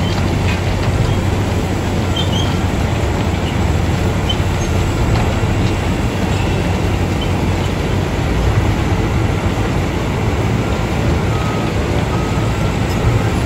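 Wirtgen cold milling machine running steadily, a heavy diesel drone, while its conveyor pours broken-up material into a dump truck's bed with a scattered rattle of falling pieces.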